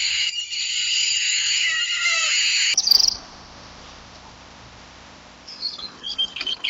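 A dense chorus of high, rapid chirping calls for nearly three seconds, ending in one sharp loud call. Then a faint hiss, with a few short high bird chirps near the end.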